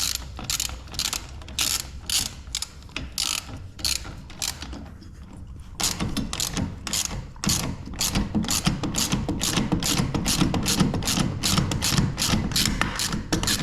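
Hand ratchet wrench clicking in repeated strokes, tightening the nuts on the mounting bolts of a new caster wheel. From about six seconds in the strokes come quicker and heavier.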